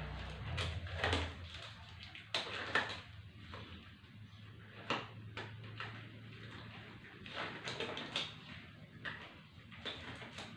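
Scattered light knocks and rustles of small objects being handled, with a low hum in the first second or so.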